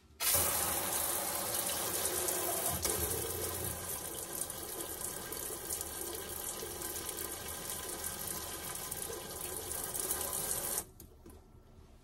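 Water spraying from a pull-out hand sprayer into a sink, a steady hiss that starts at once and cuts off sharply near the end. The water lines are being flushed until red RV antifreeze comes through during winterizing.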